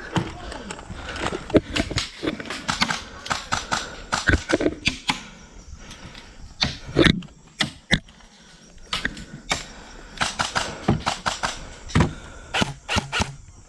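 Irregular clattering clicks and knocks from an airsoft player moving on foot: footsteps with gear rattling. The clicks thin out briefly in the middle.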